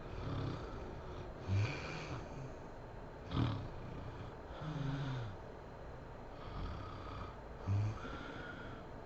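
A woman snoring in her sleep: a run of short, rough snores and breaths, about one every second and a half, with one sharper snort about three and a half seconds in.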